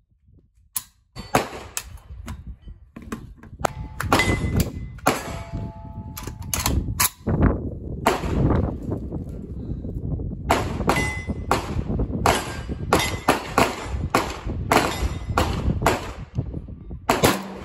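Zastava M70 7.62x39 rifle firing a long, irregular string of shots, some a fraction of a second apart, with metallic clangs and short ringing pings among them.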